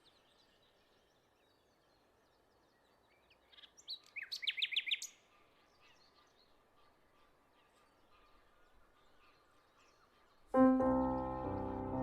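A bird calling a quick run of about eight short sweeping notes, about four seconds in, over faint outdoor ambience. At about ten and a half seconds, background music with sustained piano-like tones begins.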